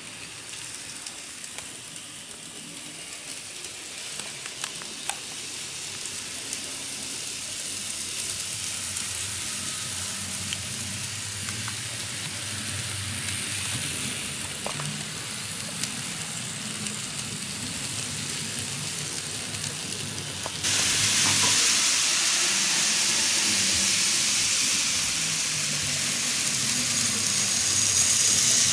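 N-gauge model trains, EF58 electric locomotives hauling passenger cars, running on the track: a steady hiss of small motors and wheels on rails with a few faint clicks. It grows louder, with a sudden step louder about two-thirds of the way through.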